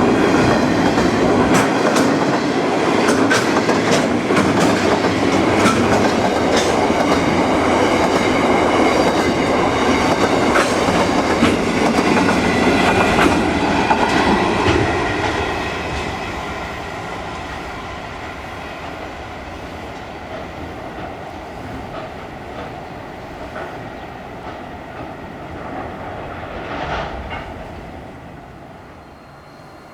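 Train passing close by, its wheels clicking over the rail joints, then fading away as it moves off in the second half.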